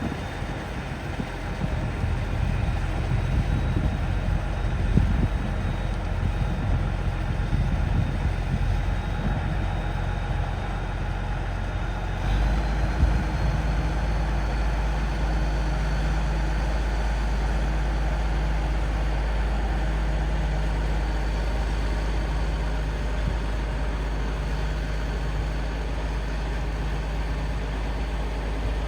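Bulldozer's heavy diesel engine running under load, its rough, uneven rumble settling about twelve seconds in into a steady, even low hum.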